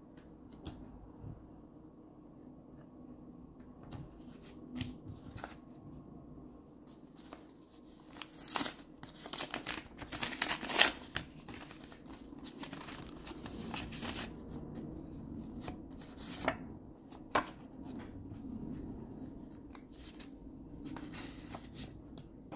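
Hands handling trading cards and their paper packaging: scattered light clicks and rustles, with a burst of tearing and crinkling around the middle.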